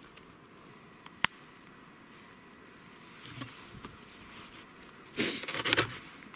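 Hands dressing a ptarmigan: soft handling noises, a single sharp click about a second in, and a louder rustling of skin and feathers being pulled about five seconds in.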